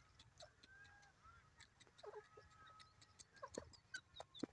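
Faint outdoor birdsong: scattered short chirps and brief whistled notes, with soft ticks between them. A louder, sudden sound comes right at the end.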